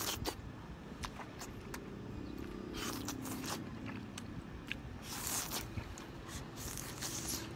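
Close-up eating sounds as spicy oysters are bitten off a wooden skewer and chewed: scattered wet clicks and a few short sucking, slurping hisses, over a faint steady low hum.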